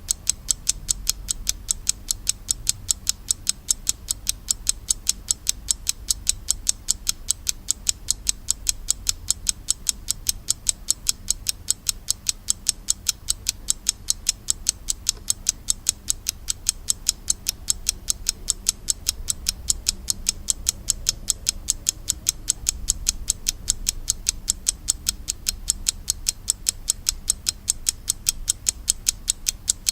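Slava mechanical alarm clock ticking: sharp, even ticks several times a second, at a steady pace.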